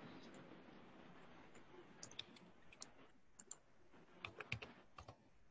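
Scattered clicks of a computer keyboard and mouse, faint, with a quick run of keystrokes about four seconds in, over a low hiss.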